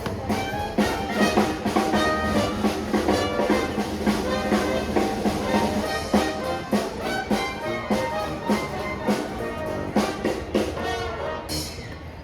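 Brass band playing jazzy music, with trumpet and trombone over a steady beat; the music drops away near the end.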